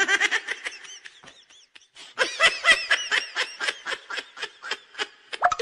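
Dubbed laughter sound effect: a run of rapid high giggles, several a second, that thins out about a second in and picks up again after two seconds.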